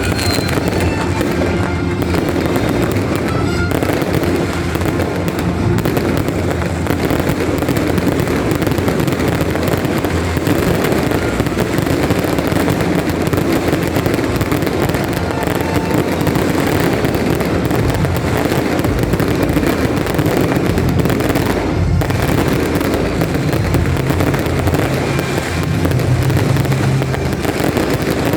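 Fireworks going off in a dense, continuous barrage of crackles and bangs at a steady level.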